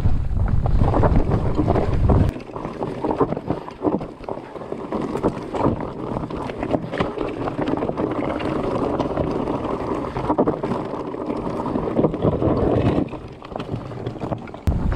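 Mountain bike rolling down a rocky dirt trail: tyres crunching over stones and dirt with many small clicks and rattles from the bike. For about the first two seconds, and again just before the end, wind buffets the bike-mounted camera microphone with a deep rumble.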